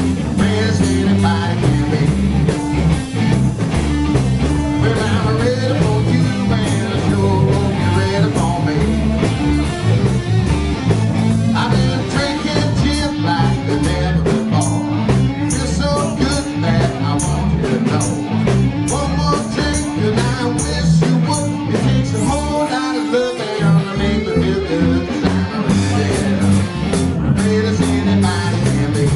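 Band playing blues rock: electric guitar, a stepping bass line and drums with a steady beat, with singing.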